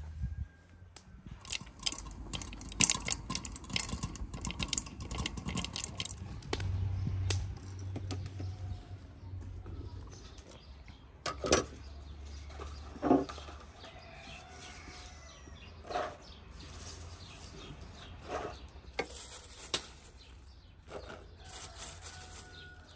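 Popcorn kernels popping in a covered pan: a quick crackle of many pops that thins out after several seconds. Later come scattered knocks and scrapes of a metal spoon in the pan as the popcorn is scooped out.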